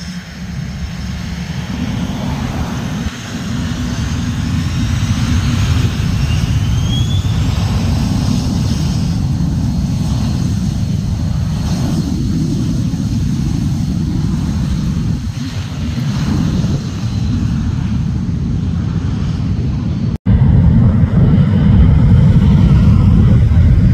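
Cessna Citation CJ4's twin Williams FJ44 turbofans running and building power for takeoff: a steady low rumble with a thin high whine that rises briefly about six seconds in. The sound grows slowly louder and, after a brief break about 20 seconds in, is louder still.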